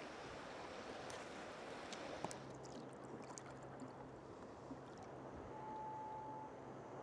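Calm sea water lapping and dripping against a kayak's hull, with a few light clicks. A faint low hum comes in about two seconds in, and a brief steady tone sounds near the end.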